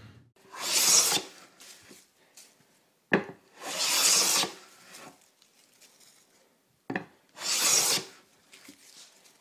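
Three strokes of a hand plane shaving across a wooden board, each lasting just under a second, about three seconds apart. A sharp knock comes just before the second and third strokes.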